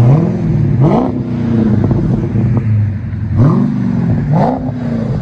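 Dodge Challenger Scat Pack's 6.4-litre HEMI V8 idling and blipped up in quick revs, two pairs of blips, each falling back to idle. It runs through an exhaust with Vibrant bottle resonators in place of the mid mufflers, the rear mufflers deleted, and quad tips.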